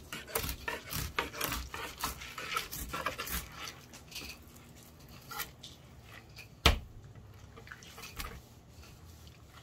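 Knife cutting a walleye on a plastic cutting board: a quick run of small clicks and scrapes as the blade works through the fish for the first few seconds, sparser after. One sharp knock, the loudest sound, comes about two thirds of the way through.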